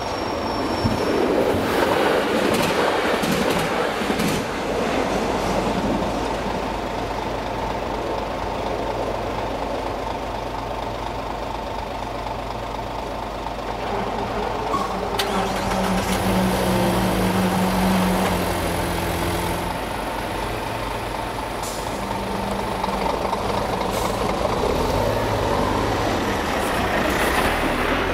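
Road traffic at a railway level crossing: vehicle engines waiting and then moving off as the barrier lifts, with a lorry's diesel engine pulling across near the end. A steady thin tone runs under most of it.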